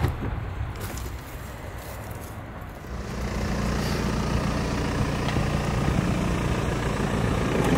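A motor vehicle's engine running with a steady low hum, growing louder about three seconds in and then holding steady.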